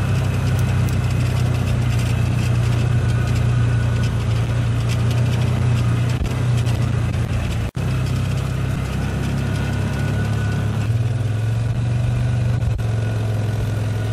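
A vehicle's engine running steadily with a low hum while riding slowly along, heard from inside the vehicle. The sound cuts out for an instant about halfway through.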